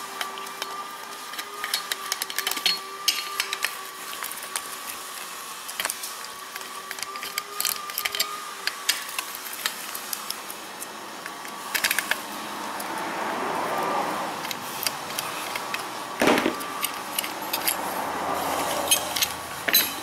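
Small clicks, scrapes and light metallic rattles as a power door lock actuator is pried off its steel mounting bracket with a screwdriver and handled, with one louder knock about three quarters of the way through. A faint steady hum sits underneath in the first half and fades out before the middle.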